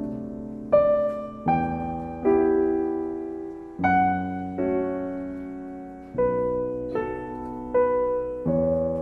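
Slow, gentle piano music: chords and single notes struck about once a second, each left to ring and fade.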